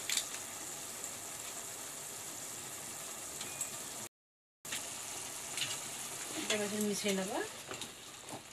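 Tomato and onion masala sizzling steadily as it fries in oil in a kadai, with a spatula stirring and scraping near the end. The sound drops out for about half a second about four seconds in.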